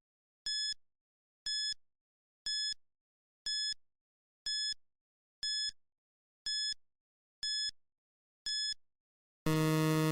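Electronic countdown-timer beeps: a short, high beep once a second, nine in all, then near the end a louder, longer, lower buzzer tone signalling that time is up.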